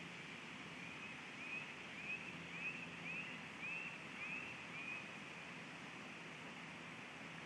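A bird calling: a run of about eight short whistled notes, each rising then falling, roughly two a second, that stops about five seconds in. Under it is steady, faint outdoor background noise.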